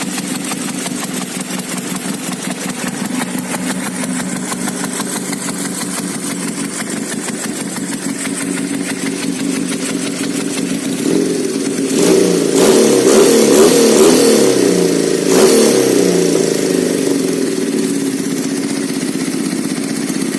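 Custom KZ200-based two-cylinder 500cc engine idling steadily. About halfway through it is revved up twice, then drops back to a steady idle.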